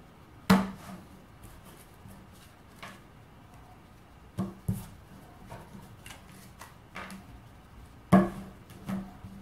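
Playing cards being handled on a wooden tabletop: a few sharp knocks of cards and the deck against the wood, with a short low ring after each, and faint card rustles in between. The loudest knock comes about a second in and again near the end.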